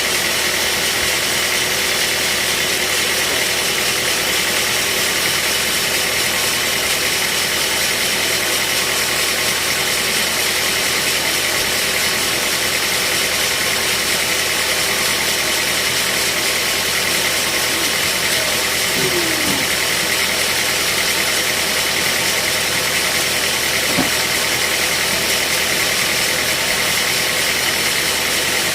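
Band sawmill running steadily: its engine and saw blade make a continuous mechanical din. A brief sliding squeak comes about two-thirds of the way in, and a single click comes a few seconds later.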